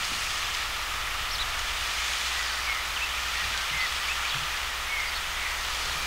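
Steady rushing hiss of flowing water, with a few short, faint bird chirps over it.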